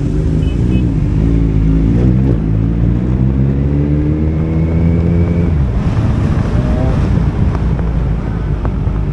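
Motorcycle engine pulling under throttle, its pitch rising steadily for about five seconds, then dropping as the throttle is eased. Wind rushes over the microphone throughout.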